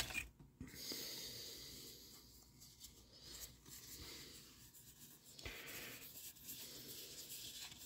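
Faint rubbing and sliding of paper trading cards against each other as a handful from a booster pack is moved through by hand.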